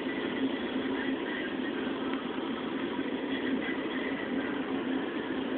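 Steady drone of a car driving, heard from inside the cabin: engine and road noise without change.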